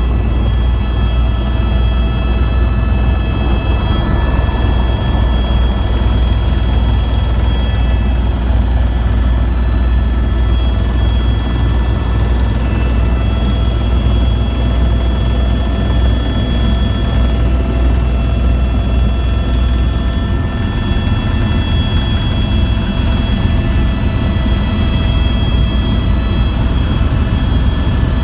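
Tour helicopter's turbine engine and rotor running steadily, a loud deep drone with several steady whining tones above it.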